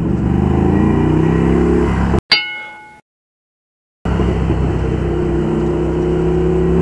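Ducati Scrambler Icon's air-cooled L-twin engine, heard on board, accelerating with rising pitch. About two seconds in it cuts off abruptly, and a bell-like ding rings and fades into a second of dead silence, the mark of an edit. The engine then comes back running, its pitch climbing again near the end.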